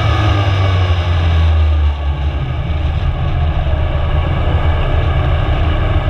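Ariel Atom 2's supercharged four-cylinder engine heard from the open cockpit, its revs settling down in the first second, then running low and steady as the car rolls slowly after the run.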